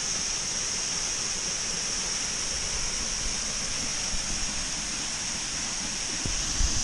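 Waterfall's steady rush of falling water into a pool, a continuous hiss. A few low thumps sound near the end.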